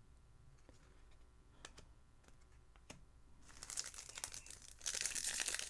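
Plastic foil wrapper of a Bowman's Best trading-card pack crinkling as it is torn open, starting about three and a half seconds in. Before that there are only a few faint clicks of cards being handled.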